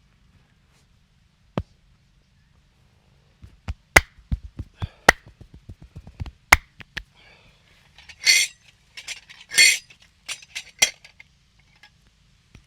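Hand-percussion massage: one sharp click, then a fast run of about a dozen sharp slaps and clicks from the masseur's hands, two short rustling rubs, and a few more clicks.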